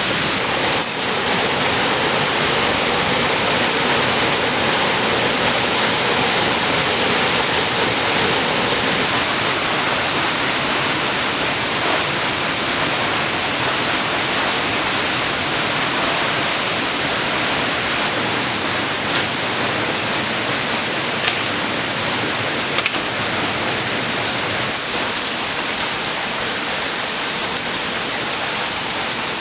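Steady rush of falling water, with a few small clicks in the second half.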